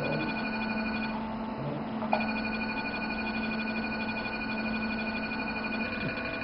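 Electronic emission tone of a 532 nm diode laser while it fires: a steady high beep with a regular pulsing edge. It stops for about a second near the start and comes back with a small click, over a steady low hum.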